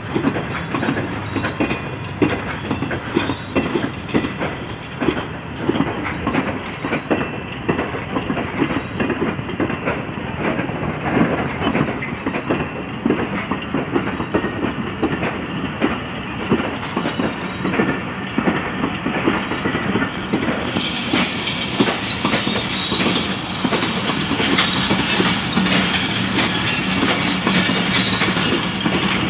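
Passenger train coaches rolling past at low speed on departure, their wheels clicking over the rail joints in a steady clickety-clack.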